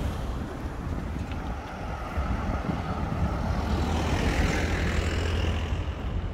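Road traffic: a vehicle passing, its tyre and engine noise swelling to a peak about four seconds in and then fading, over wind rumble on the microphone.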